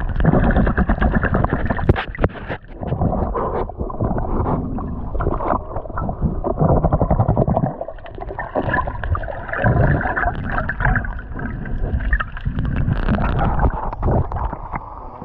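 Water sloshing and gurgling around a submerged camera, muffled and surging unevenly, with a few sharp clicks.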